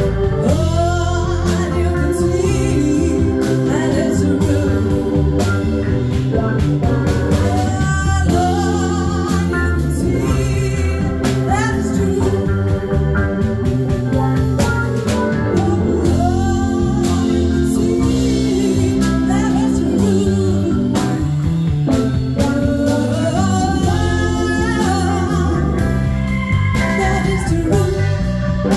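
Live band playing a song: a woman sings lead over electric guitar, bass, drums and organ.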